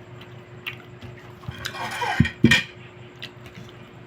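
Close-up eating sounds during a noodle-and-chicken mukbang: light clicks, then a louder noisy stretch with two sharp knocks about halfway through, over a steady low hum.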